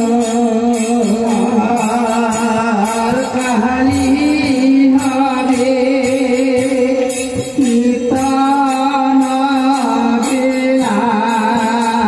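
Live kirtan: a devotional singer chanting with a wavering, ornamented melody over sustained instrumental tones, with small hand cymbals keeping a steady beat, amplified through a PA sound system.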